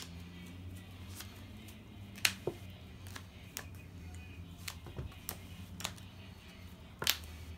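Sharp clicks and taps of sleeved trading cards handled in the players' hands, scattered and irregular, with two louder snaps, one about two seconds in and one near the end.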